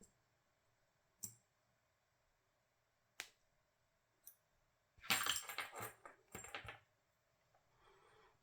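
Small parts being handled in close work: a few sharp, separate clicks, then about two seconds of busier clicking and light rattling about five seconds in.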